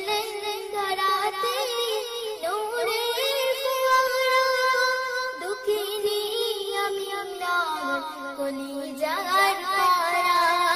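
A high voice singing a Bangla Islamic gojol melody, with wavering, ornamented notes and a lower held note near the end.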